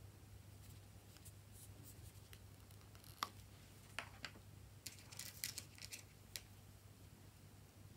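Small plastic clicks as a cap is pulled off a little plastic toy container: one sharp click about three seconds in, then a few light clicks and rustles as the pieces are handled, over a faint low hum.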